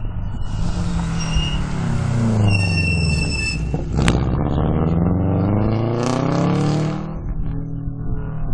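A rally car drives past with its engine revving up and down. A brief high whine sits over the engine, and a sharp crack comes about four seconds in. The sound fades near the end.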